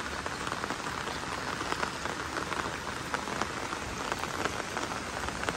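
Heavy rain falling steadily onto a flooded street: an even hiss with a dense patter of separate drops.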